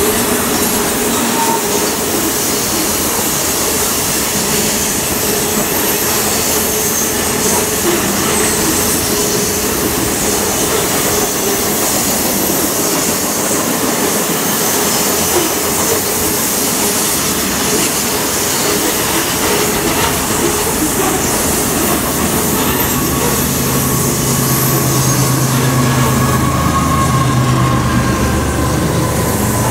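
Covered hopper cars of a freight train rolling past on a curve: steady wheel-on-rail rumble and clatter, with faint high wheel squeal now and then. A low steady hum comes in about three quarters of the way through.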